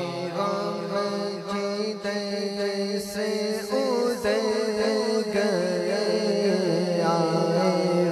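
A man sings a naat, devotional verse in praise of the Prophet Muhammad, into a microphone. His slow, ornamented melody wavers up and down in pitch over a steady low drone.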